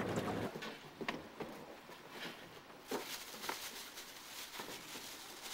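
Boat and wind noise cut off about half a second in, followed by a quiet background with about half a dozen faint, irregularly spaced taps or knocks.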